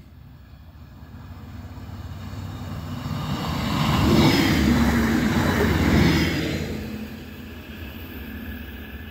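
A DB Regio diesel multiple unit passing over the level crossing: its engine hum and wheel rumble grow as it approaches, are loudest for about two seconds in the middle as it goes by, then fall away as it runs off.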